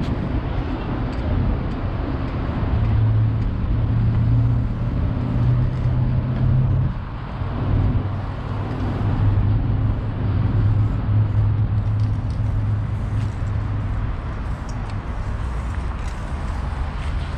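Busy road traffic: a steady rumble with the deep drone of heavy vehicle engines that swells and fades a few times.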